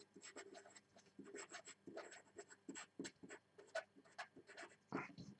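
Faint scratching of a marker pen writing words by hand, in many short quick strokes.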